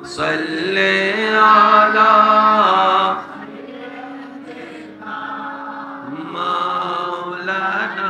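A man chanting an Islamic devotional recitation in long, drawn-out, wavering notes. It is loud for about the first three seconds, drops to a softer held line, then swells again near the end.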